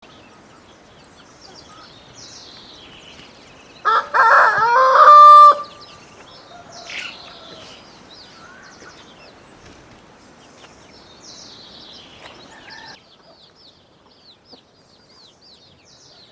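A rooster crows once, loud, about four seconds in, for about a second and a half. Small birds chirp faintly throughout.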